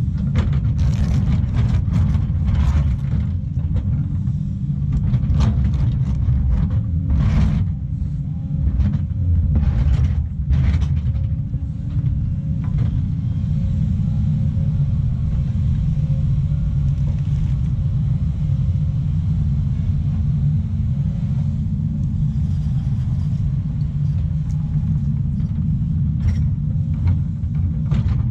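Volvo EC220 excavator's diesel engine running steadily under load as the bucket cuts into shale rock. Sharp scrapes and knocks of the bucket on rock come in a cluster over the first ten seconds or so and again near the end.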